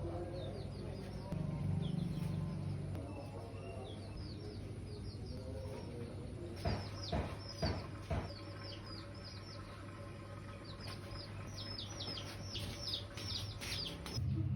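Small birds chirping, many short falling chirps repeated in quick runs that grow more frequent near the end, over a low steady hum, with a few sharp knocks about halfway through.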